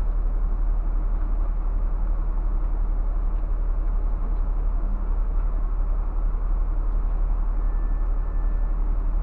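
Scania coach's diesel engine idling steadily while the coach is parked: a constant deep, even rumble heard from inside the cab.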